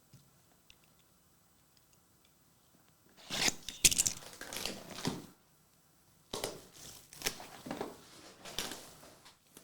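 Trading-card packaging being torn open and crinkled by hand in several bursts, loudest about four seconds in, after a few quiet seconds.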